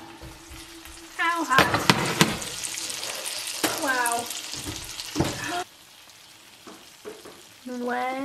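Prime rib roast just out of the oven sizzling in its juices in a ceramic baking dish, with a few sharp clunks as the hot dish is handled and set on the glass cooktop; the sizzle cuts off abruptly about halfway through. A high voice calls out briefly a few times and holds one long note near the end.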